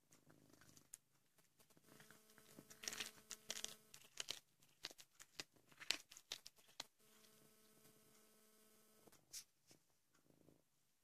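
Cat chewing a whole mouse, wet crunching and sharp clicks as it bites through the bones, densest in the middle. A steady hum comes in twice for about two seconds each time.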